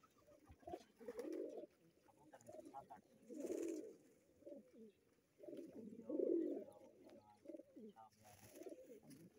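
Domestic pigeons cooing in a flock: repeated low coos from several birds, overlapping and coming every second or two.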